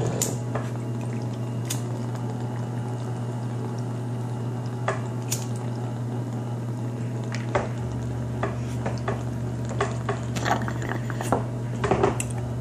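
Water bubbling in a glass bubbler pipe as smoke is drawn through it, with scattered clicks and taps of glass on glass and on the table, over a steady low hum.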